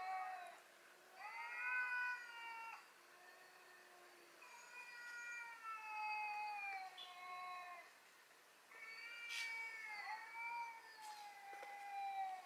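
Cats yowling at one another, a fight or standoff played back from a cat video on a computer. It is a run of long, wavering yowls, one after another, each lasting a second or two.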